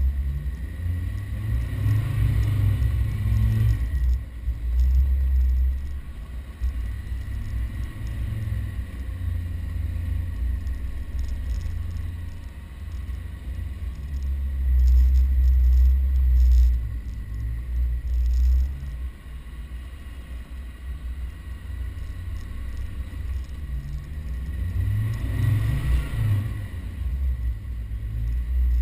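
Land Rover Defender 110 engine pulling through soft sand dunes with a low rumble, revving up and easing off as the throttle changes, with a rise and fall in revs about two seconds in and again near the end.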